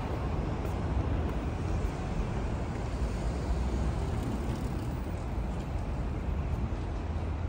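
Steady city road-traffic noise: a continuous low rumble of vehicles on a street.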